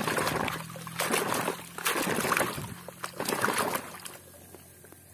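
Pond water splashing and sloshing as a plastic toy is scrubbed and swished by hand, in four short bursts, growing quieter near the end.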